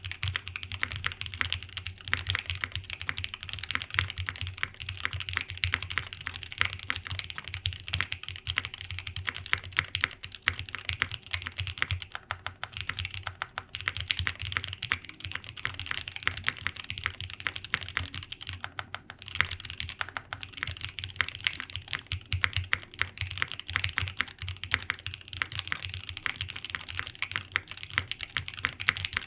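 Fast continuous typing on a Meletrix Zoom75 TIGA 75% custom mechanical keyboard fitted with SP Star Meteor White switches: a dense stream of keystrokes, with a brief lull about two-thirds of the way through.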